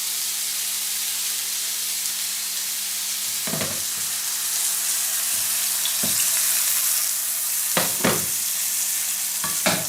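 Vegetarian burger patties frying in a pan, a steady sizzling hiss. A few short knocks or clicks sound over it, about four seconds apart at first and then closer together near the end.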